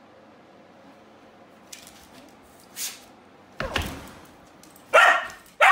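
A dog barking twice, loud and close, near the end, after a single thud a little past the middle.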